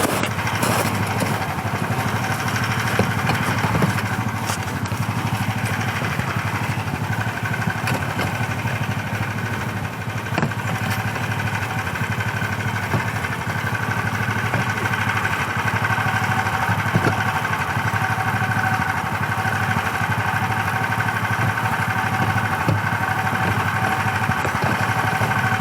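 A motor vehicle's engine running steadily at an unchanging speed.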